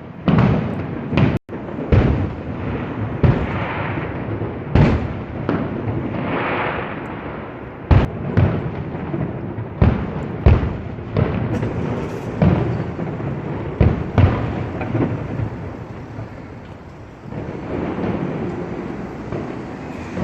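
Fireworks display: a rapid, irregular series of bangs and booms from exploding aerial shells, with crackling noise between them.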